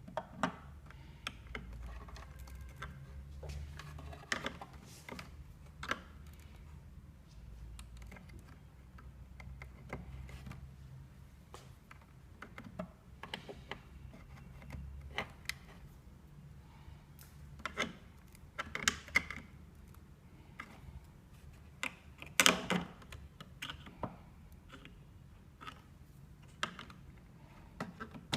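Irregular clicks, taps and knocks of hands working on computer hardware during a CPU replacement, over a faint steady low hum; the loudest knock comes about 22 seconds in.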